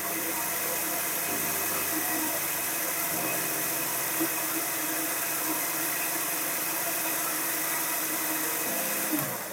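Electric mixer grinder running steadily, its motor spinning a small stainless-steel jar that purees chopped tomatoes with a little water into chutney. It begins to wind down near the end.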